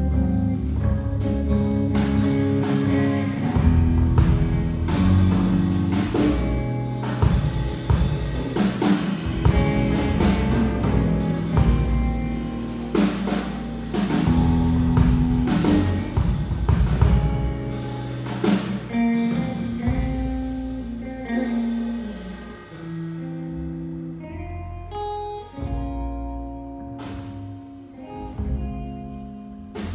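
Live jazz trio of electric guitar, upright bass and drum kit playing an instrumental. The drumming is busy for about the first two-thirds, then thins out and the music grows quieter, with longer held guitar notes near the end.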